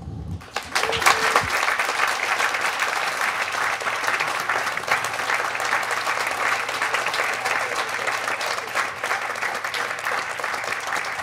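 Applause from a crowd of guests, breaking out about half a second in and holding steady.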